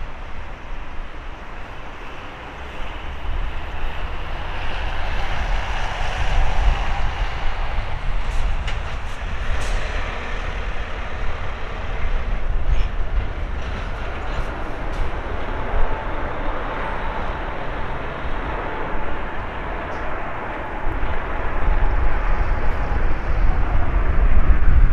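Jet engine noise from an Airbus A320neo's geared turbofans as the airliner lands and rolls out along the runway, a steady rushing rumble that grows louder near the end as the aircraft rolls closer.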